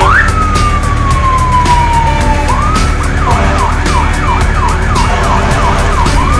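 Siren: one long falling wail, then a quick run of short rising yelps, about three a second, over background music.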